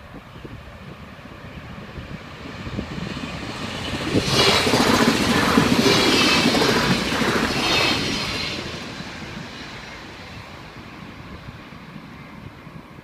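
Bombardier Talent diesel multiple unit passing over the level crossing: its rumble and wheel noise build, stay loud for about four seconds in the middle, then fade away.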